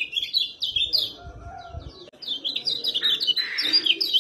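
Kecial kuning (yellow white-eye) giving rapid, high chirping calls in quick runs. The calls stop for about a second, during which a low rumble is heard, then resume until the end.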